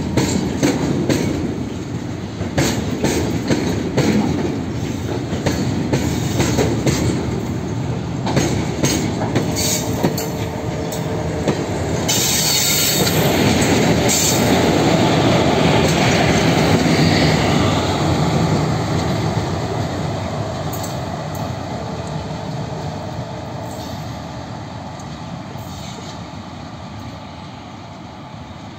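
Freight train of oil tank wagons rolling past, with rapid irregular clicks of wheels over rail joints and two short wheel squeals. The noise swells loudest about twelve to eighteen seconds in as the brake van and the rear-pushing WAG-7 electric locomotive pass, then fades steadily as the train draws away.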